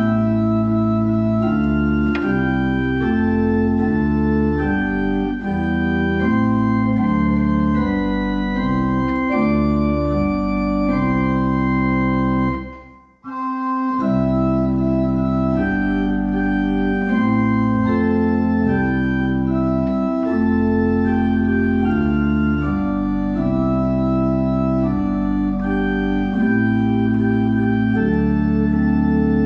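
Church organ playing a hymn tune in full, sustained chords. A short break about 13 seconds in separates one verse from the next.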